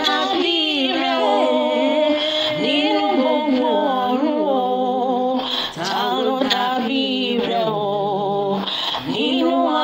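A woman singing a Yoruba worship song, her voice gliding through long held notes, with steady sustained tones underneath.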